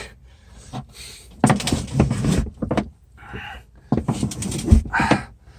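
Old freshwater plumbing tubing being pulled by hand out through a boat's bulkheads: two bursts of scraping and rubbing with knocks, the second with one sharp knock.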